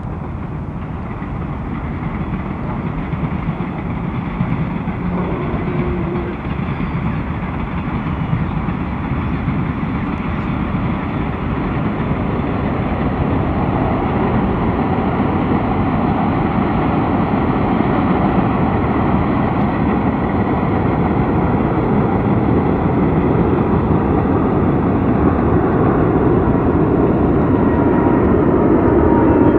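Jet engines of a Boeing 747-8 airliner running, a steady rumbling roar that grows gradually louder, as when the jet spools up and rolls for takeoff.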